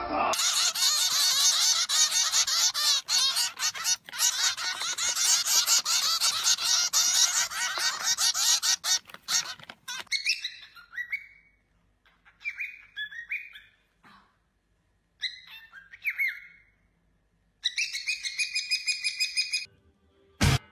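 Birds chirping and squawking: a dense, busy chatter for about ten seconds, then a few separate squawks with gliding pitch, then a quick run of repeated chirps near the end.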